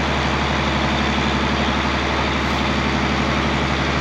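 Heavy engine running steadily at an even speed: a constant low drone with no change in pitch, over a steady rushing noise.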